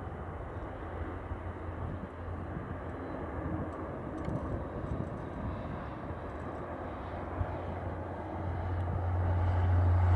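Cessna 525A CitationJet CJ2+ twin turbofan engines running at taxi power as the jet rolls along the taxiway: a steady noise with a strong low rumble that grows louder about eight seconds in.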